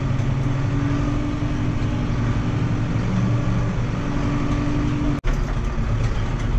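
Farm tractor's diesel engine running steadily, heard from inside the closed cab as a low, even hum. The sound drops out for an instant about five seconds in.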